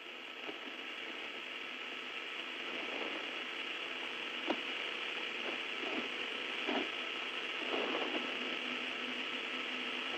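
Steady radio-channel hiss from the Soyuz spacecraft's air-to-ground audio downlink during the third-stage burn, with a few faint clicks and crackles, the sharpest about halfway through.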